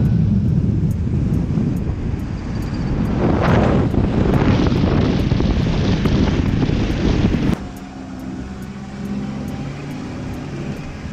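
Moving vehicle with heavy wind rushing over the microphone. About two thirds of the way in it cuts to a quieter, steady engine drone from a vehicle driving along a dirt track.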